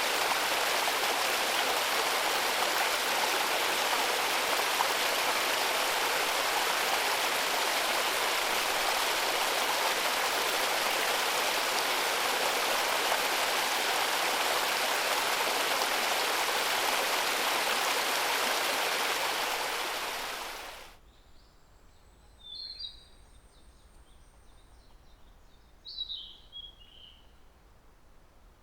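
Steady rushing water of a mountain stream falling over rocks, fading out about twenty seconds in. After the fade it is quiet, and a small songbird calls in two short chirping bursts.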